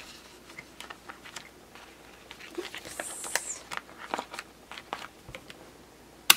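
Clear plastic pocket pages being turned and handled in a ring binder: soft crinkling and light taps, with a brief swish about three seconds in and a sharp click near the end.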